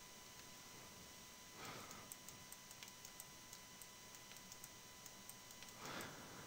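Near silence: faint, scattered clicks from a computer mouse over a faint steady electronic whine, with two soft puffs of noise.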